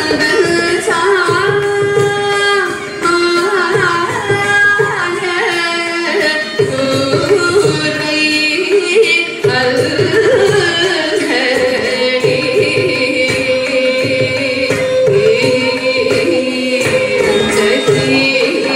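Carnatic music accompanying a Bharatanatyam varnam: a sung melody that bends and ornaments its notes, over rhythmic hand-drum strokes.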